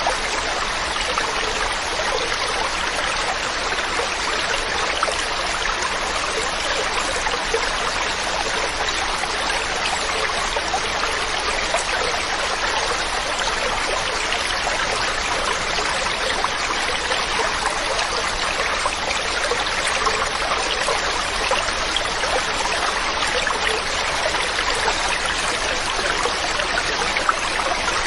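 Mountain stream running steadily over rocks, a continuous rushing with small splashes and gurgles.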